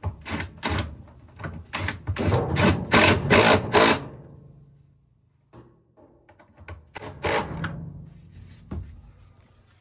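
A run of sharp clicks and knocks, densest in the first four seconds with a few more about seven seconds in, over a faint low hum: handling noise from working on the washer.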